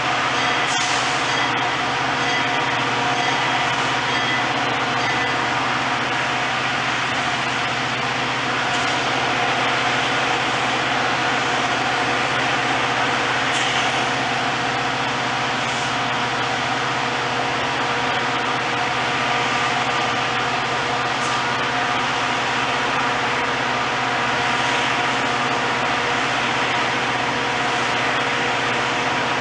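Diesel locomotive of a Metra commuter train running steadily at a standstill: a constant hiss with several steady tones, unchanging throughout.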